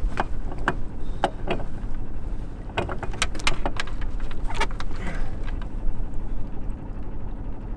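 Anchor chain clinking and rattling at the bow as it is handled and hauled, a string of sharp metal clicks through the first five seconds or so, over a steady low rumble.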